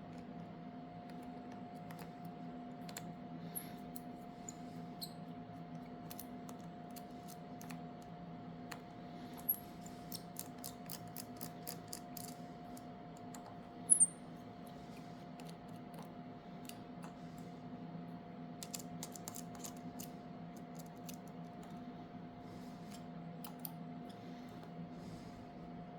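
Small repair tools clicking and tapping against a smartphone's parts during disassembly: many light, irregular clicks, with two sharper, louder clicks about fourteen seconds in, over a steady low hum.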